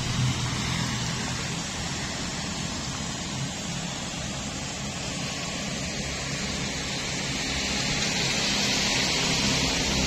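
Steady outdoor background noise: a low rumble of traffic under an even hiss, growing slightly louder toward the end.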